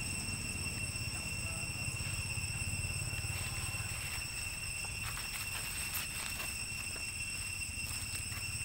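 Steady high-pitched insect drone, several even tones held without a break, over a low rumble on the microphone that eases after about three seconds. A few faint clicks come about five to six seconds in.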